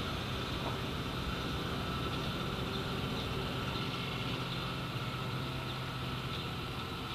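A steady low mechanical hum under an even background noise.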